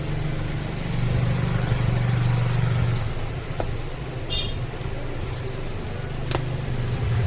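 A steady low mechanical hum, like a motor or engine running, with a few faint clicks.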